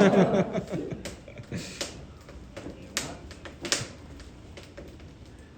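Coal fire crackling in a forge, with a few sharp, irregular pops over a low background.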